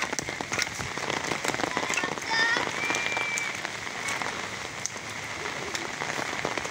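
Steady rain falling on wet muddy ground: a fine, even patter with many scattered sharper drip ticks.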